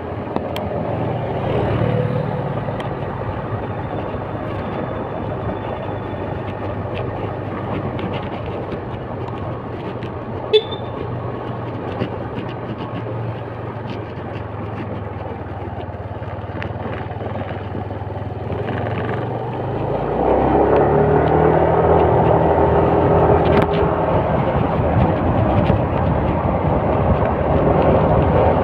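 Motorcycle engine running while riding, under a steady rush of wind and road noise. About two-thirds of the way through the engine note rises and grows louder as the bike speeds up.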